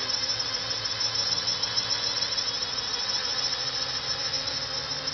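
Ghost quadcopter drone's propellers and motors whining steadily as it flies.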